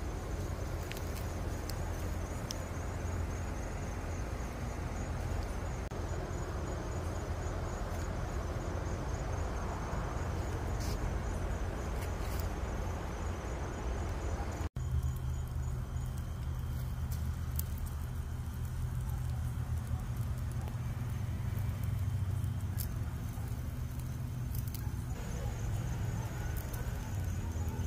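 Meat sizzling over a charcoal grill, with scattered sharp crackles and pops from the coals and dripping fat. Crickets chirp in a steady pulsing trill, and a steady low hum sits underneath, stronger in the second half.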